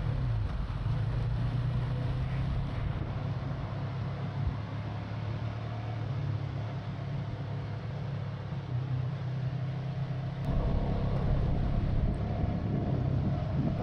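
CFMoto 250NK motorcycle's single-cylinder engine running while the bike is ridden, heard through the action camera's own microphone with wind noise. The engine pitch drops right at the start, holds steady, then gets louder about ten and a half seconds in.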